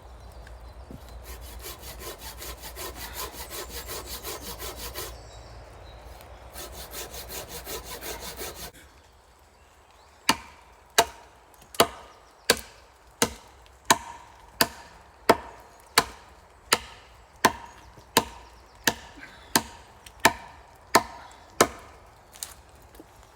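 A hand saw cutting through wood in two bouts of quick strokes, then wood being struck in a steady run of about eighteen sharp blows, roughly three every two seconds, as a log joint is worked.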